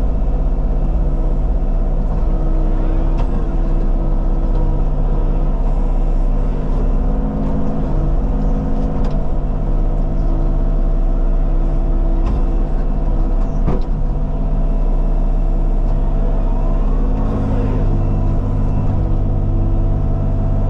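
Diesel engine of a Bobcat compact machine running steadily while working, its note shifting a couple of times. A sharp knock comes about 14 seconds in.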